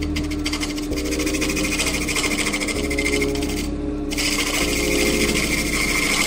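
A hollowing tool cutting inside a spinning olive-root hollow form on a wood lathe: a fast, rattling scrape that breaks off for a moment about four seconds in. Background music with a slowly changing bass line plays underneath.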